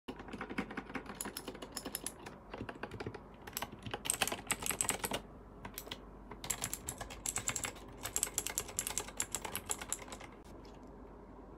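Typing on a mechanical keyboard with thick custom keycaps: rapid key clacks in bursts, with a pause about five seconds in and a quieter stretch near the end.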